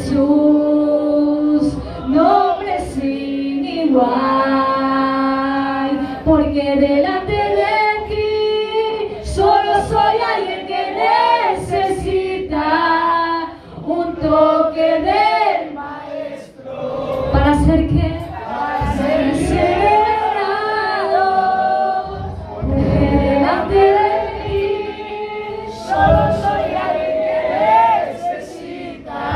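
A woman singing a Spanish worship chorus into a microphone, holding long notes between shorter sung phrases.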